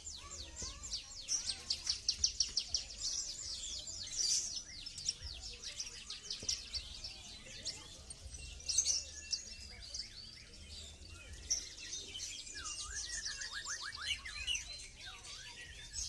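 Many songbirds chirping and twittering at once: rapid, high-pitched chirps and trills overlapping throughout, with a lower fast trill coming in near the end.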